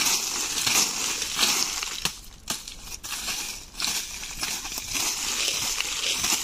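Dry fallen leaves rustling and crackling as they are scraped and swept aside over bare soil with a small hand tool, in repeated strokes, with a short pause a little past two seconds in.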